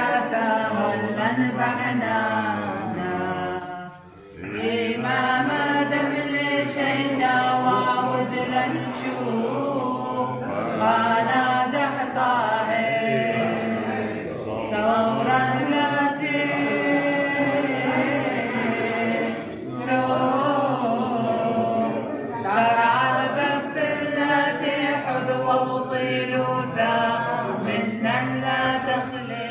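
A group of men and women singing together without instruments, in long chant-like phrases with held notes and a short break about four seconds in.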